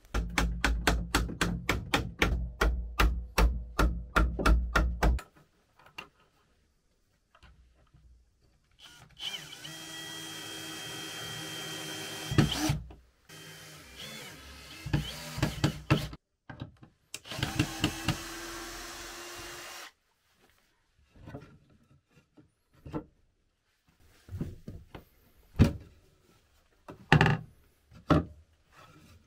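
Cordless drill driving screws to fit small metal hinges to a wooden board panel: two runs of a few seconds each with a steady motor whine, between clicks and knocks of the boards being handled. It opens with about five seconds of rapid, regular beats.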